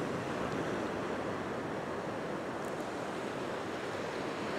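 Ocean surf breaking and washing up the beach: a steady rush of waves.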